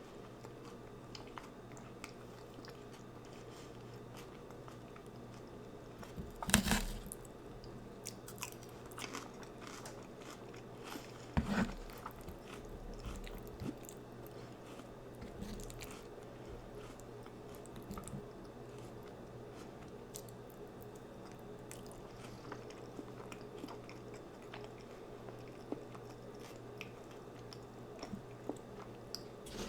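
A person eating close to the microphone: steady chewing with many small wet clicks, and two louder crunchy bites, one about six seconds in and one about eleven seconds in.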